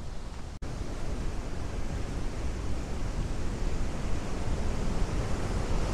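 Steady rush of white water from the Waikato River rapids at Huka Falls, growing slowly louder, with a momentary break about half a second in.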